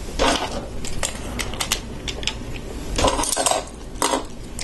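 Plastic Lego pieces clicking and clattering as loose parts are picked from a pile and pressed onto a train car's base: a run of sharp clicks with a few louder rattles.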